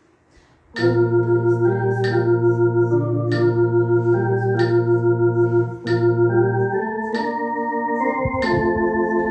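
Electronic organ playing slow sustained chords over a low held bass note, coming in about a second in and changing with the beat. A metronome clicks steadily underneath at 47 beats a minute, about one click every 1.3 seconds.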